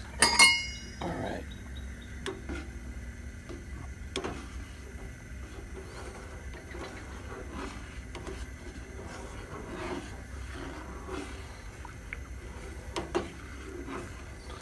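A metal utensil strikes the rim of a small steel pot with a short ringing clink just after the start, then grits are stirred in the pot, with faint scraping and light knocks against the metal.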